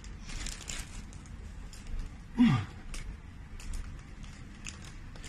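A person straining to hold a forearm plank: a breathy exhale, then about two and a half seconds in a short groan falling in pitch. Scattered light clicks and a low rumble sit underneath.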